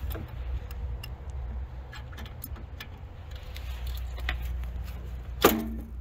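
Pliers clicking and scraping against wire connectors on an air conditioner compressor's burnt terminals: scattered small metallic clicks, with a sharper one about five and a half seconds in, over a steady low rumble.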